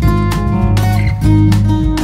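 Background music: a guitar-led track with regular strummed chords.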